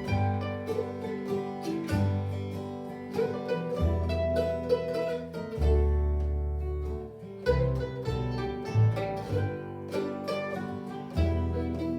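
Acoustic string trio playing a waltz: mandolin melody over acoustic guitar and upright bass, the bass notes changing about every two seconds.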